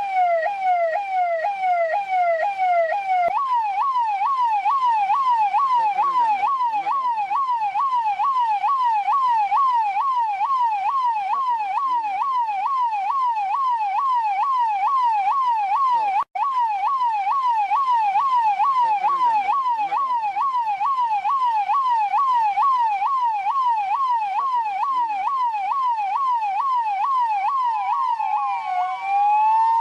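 Electronic police siren of the Indian/Pakistani type sounding a fast yelp, its pitch sweeping up and down about two to three times a second. About three seconds in the yelp steps up to a higher pitch. It cuts out for an instant around the middle, and near the end it changes to a slower rising wail.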